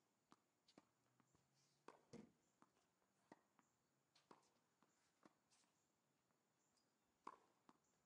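Faint, sharp pops of a tennis ball being struck by a racket and bouncing on a hard court, irregularly spaced about a second apart. The clearest are about two seconds in and near the end.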